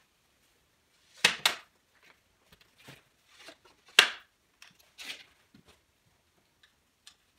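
A homemade Baltic birch plywood tripod being unfolded, its wooden legs and linkage braces knocking and clacking as they swing open. There are two sharp knocks about a second in, the loudest knock near the middle, and lighter clicks in between and after.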